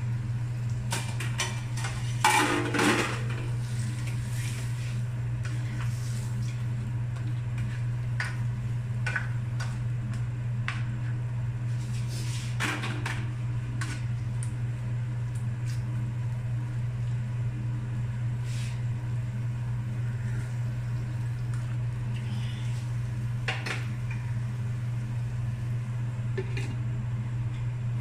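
Plastic spatula stirring vegetables in a nonstick frying pan, with scattered knocks and scrapes against the pan. The loudest come about two seconds in and again around twelve seconds. A steady low hum runs underneath.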